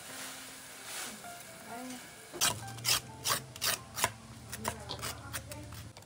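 Rubbing or scraping strokes, about two to three a second, starting about two seconds in, over a low steady hum.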